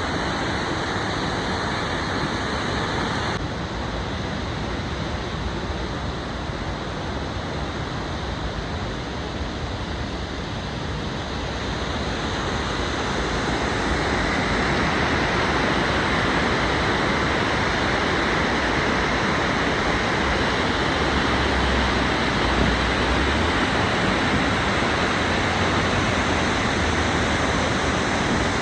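Water of the Lechfall waterfall rushing steadily, a dense even noise that grows louder about halfway through.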